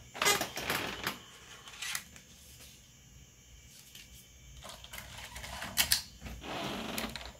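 A 3.5-inch floppy disk pushed into a TEAC FD-235HF floppy drive, clicking sharply as it seats, amid a few scattered mechanical clicks and handling clatter.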